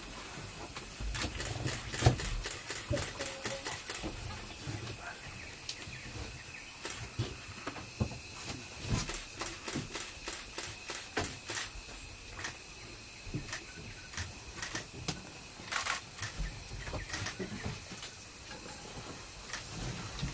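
Outdoor forest ambience near feeding Asian elephants: a steady high hiss under many scattered sharp clicks and snaps, the loudest about two seconds in.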